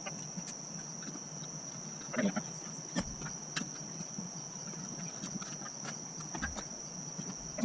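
Crickets trilling steadily at one high pitch, with a few light knocks and rustles about two and three seconds in.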